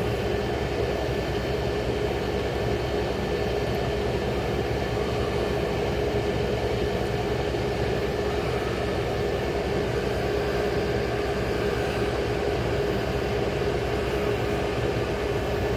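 A 35-year-old General Electric Carry Cool air conditioner running: a steady fan-and-compressor whir with a steady hum tone, even throughout.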